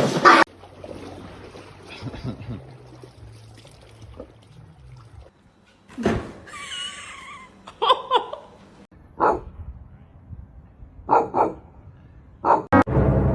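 An animal calling: a wavering high whine about six and a half seconds in, then a handful of short, sharp calls in the second half.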